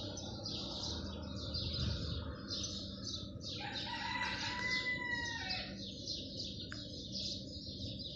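A rooster crows once, starting about three and a half seconds in and lasting about two seconds, over steady, rapid, high-pitched chirping.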